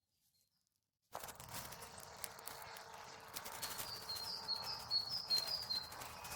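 After about a second of silence, outdoor sound comes in: a bird chirps a quick series of short high notes in the middle, over rustling and light clicks.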